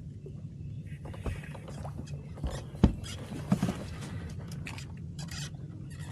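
Knocks and clatter of gear being handled on a kayak, over a steady low hum, with one sharp knock a little before the middle.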